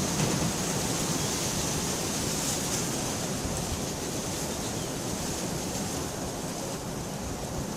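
Steady rain, an even hiss that grows slightly quieter as it goes.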